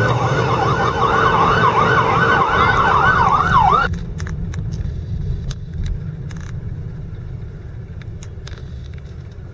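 Fire apparatus siren on a fast yelp, rising and falling about three times a second, heard from inside the truck's cab over the engine rumble. It cuts off suddenly a little under four seconds in, leaving a low vehicle rumble with a few faint clicks.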